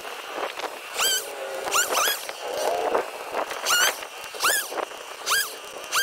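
An animal giving about eight short, high-pitched calls, each rising and then falling in pitch, coming faster toward the end.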